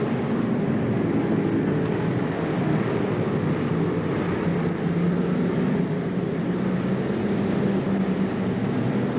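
Several stock car engines running together at racing speed as the cars lap the oval, a steady continuous sound with no letup.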